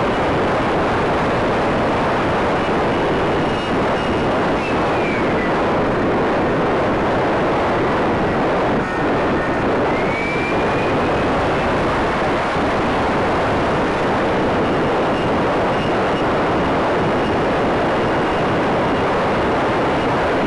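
Onboard sound of a Parkzone Stryker electric RC flying wing in flight: a steady rush of wind and propeller noise, with a faint motor whine that drops in pitch about four to five seconds in and rises again about ten seconds in as the throttle changes.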